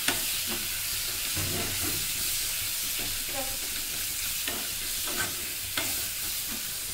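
Onion and tomato masala sizzling in oil in a frying pan while a steel spoon stirs it, with a few sharp clicks of the spoon against the pan.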